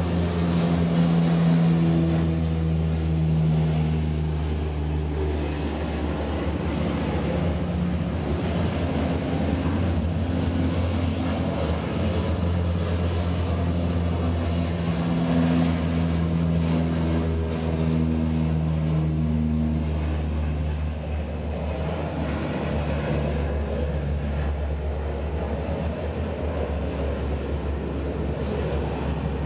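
Propeller engines of Canadair water-bombing planes droning as they skim the sea to scoop up water: a steady low drone whose pitched tones swell and fade.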